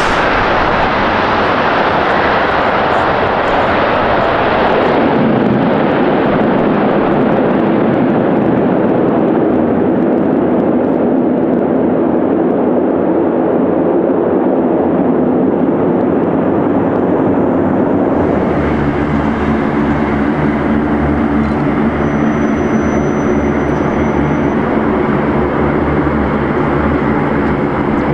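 CC-130J Hercules's four turboprop engines with six-bladed propellers, loud at touchdown and easing after about five seconds into a steady propeller drone. From about eighteen seconds a lower steady drone with a humming propeller tone comes from the Hercules taxiing.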